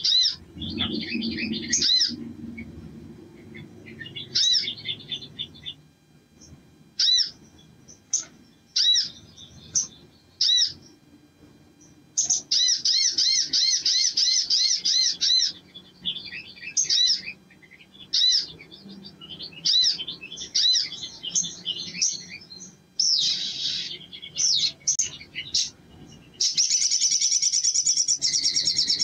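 Male sunbird singing: bursts of sharp chirps and rattling trills broken by short pauses, ending in a long, fast trill near the end.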